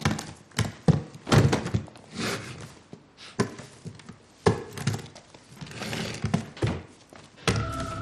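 Suitcases and briefcases set down with a series of sharp thuds and knocks, and their latches clicking as the cases are opened. Music comes in near the end.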